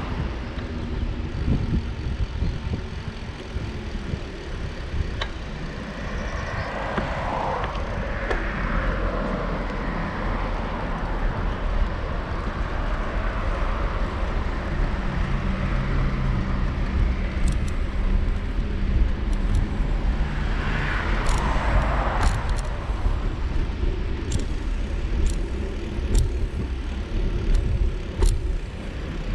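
Road traffic heard from a moving bicycle over a steady low rumble of wind and riding noise. Vehicles pass about seven seconds in and again around twenty-one seconds, and a scatter of sharp clicks comes in the last third.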